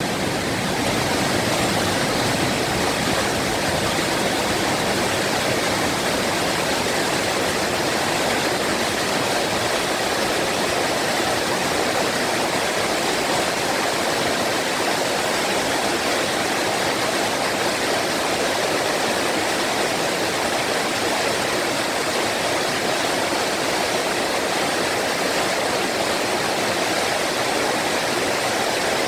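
Small mountain-stream waterfall: water splashing and rushing steadily.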